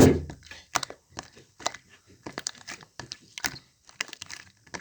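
Slime being squeezed and worked by hand, making a thump at the start and then irregular little crackling pops and clicks.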